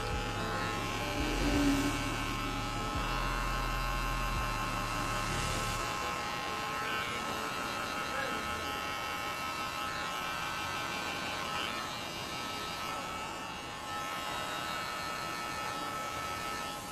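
Cordless hair clipper running with a steady buzz as it is passed back over the sides of a fade haircut, a second pass to correct and blend it.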